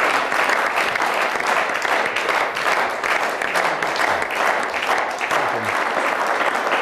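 Studio audience and seated guests applauding with steady, continuous clapping.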